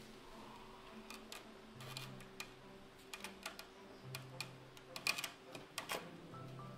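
A kitten's claws clicking and scratching on a mesh window screen as it climbs, an irregular scatter of ticks that is busiest around five to six seconds in, with soft background music underneath.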